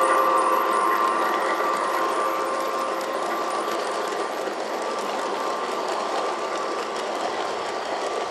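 LGB garden-railway train running past: the model electric locomotive's motor whine fades in the first second or two, leaving the steady rolling noise of the coaches' wheels on the track, slowly getting quieter as the train moves away.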